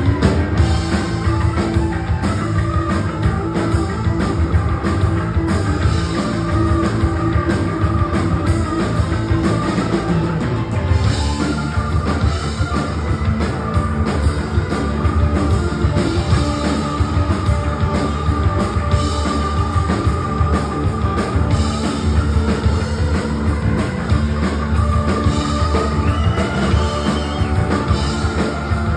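A rock band playing loudly and live, led by an electric organ solo on a Nord stage keyboard over drums, bass and electric guitar. Sustained organ notes sit on top of the band, and the backing changes about a third of the way through.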